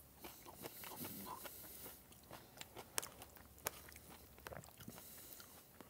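Faint eating sounds: a metal fork clicking and scraping in a clear plastic takeaway tub, with quiet chewing, and a few sharp clicks in the middle.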